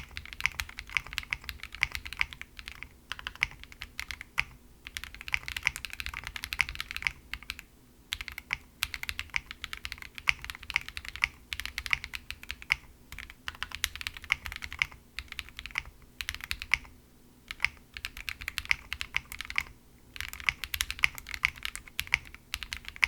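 Typing on a jris65, a gasket-mounted 65% custom mechanical keyboard built foamless with KTT Rose linear switches on an FR4 plate: fast runs of keystrokes broken by short pauses every few seconds.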